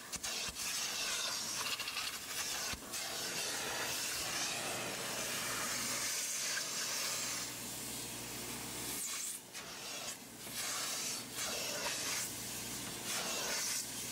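Carpet extractor (Aqua Pro Vac) running steadily, with the hiss of spray and suction as its clear upholstery tool is drawn over a cloth car seat. The hiss dips briefly a few times in the second half.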